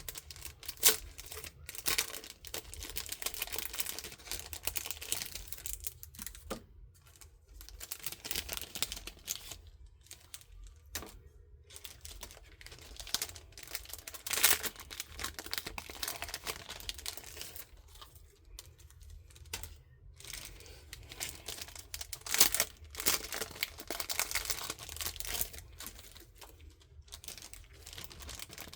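Irregular crinkling and rustling of plastic packaging, with scattered light clicks and knocks, as small art tools and sponges are handled and sorted into a storage container.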